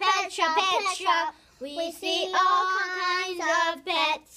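A child singing the rhyming lines of a picture-book song, with one long held note a little past halfway through.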